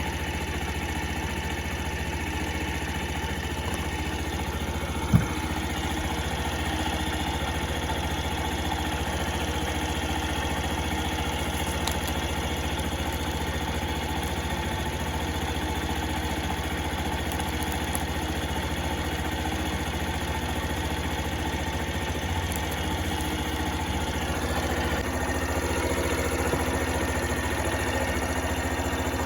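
Honda Super Cub 50 (AA04) single-cylinder four-stroke engine idling steadily, with one sharp knock about five seconds in and the engine slightly louder near the end.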